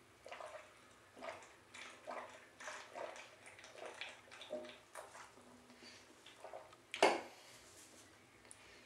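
A woman gulping beer from a tall can: a run of soft swallows, about one to two a second, for the first five seconds. About seven seconds in there is one loud, short sound.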